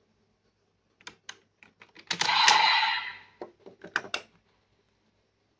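Hard plastic toy parts clicking and scraping as the OOO Raise Buckles are handled and pulled off the DX Decade Driver belt. There are several sharp clicks, a louder rustling scrape lasting about a second, then a quick cluster of clicks.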